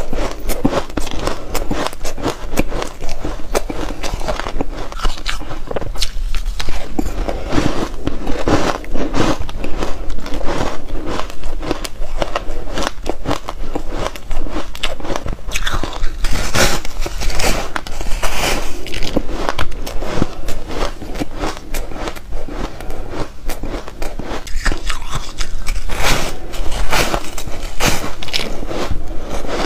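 Close-miked biting and chewing of a frost-coated bar of hard ice: dense, irregular crunching and crackling as pieces are bitten off and crushed between the teeth.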